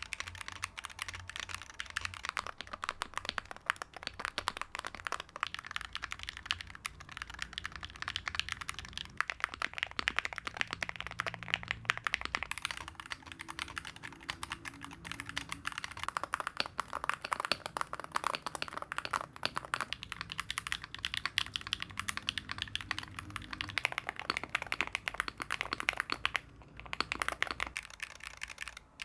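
Fast, continuous typing on MonsGeek TMR magnetic-switch keyboards in a typing sound test: a dense stream of keystroke clacks, several per second. The character of the sound shifts every few seconds as the test moves between boards.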